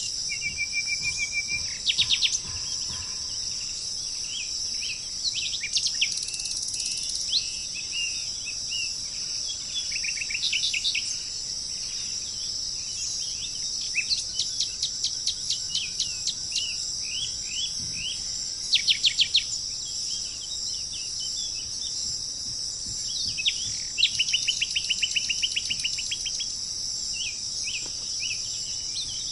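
Wild birds singing over a steady high chorus of insects. The birdsong comes in clusters of short falling notes and fast trills of evenly repeated notes, with pauses between phrases, while the insect hiss goes on unbroken underneath.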